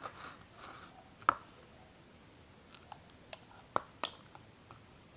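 Sparse light plastic clicks and taps from handling the boric acid water bottle and the small slime pot, one sharper tap about a second in and a few more near the middle.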